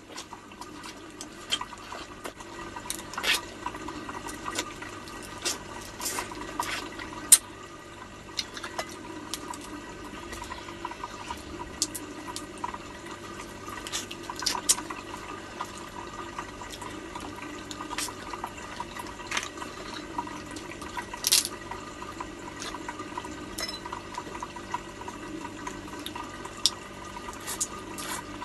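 Close-mouthed eating of crab: wet sucking, smacking and slurping as meat is pulled from the shells, with irregular sharp clicks and snaps scattered throughout. A steady hum runs underneath.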